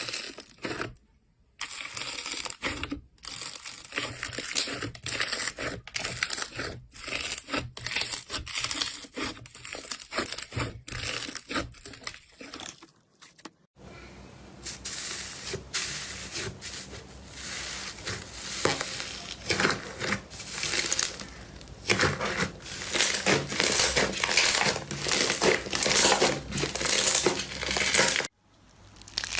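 Slime being squeezed and poked, crackling and popping with many sharp clicks. After a short pause about halfway through, the crackling turns denser and more continuous.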